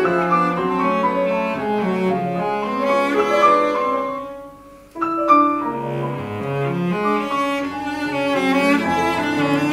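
Solo cello played with the bow, a run of sustained notes and chords. The phrase fades away about four seconds in, and after a brief break a new phrase starts sharply about five seconds in.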